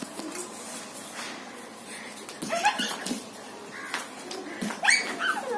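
Young children's voices: two short bursts of high calls and squeals, about two and a half and five seconds in, the second with a sharp falling squeal.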